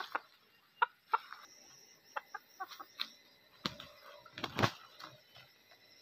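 Junglefowl rooster clucking in short, scattered calls, with a few light clicks and two louder thumps around the middle.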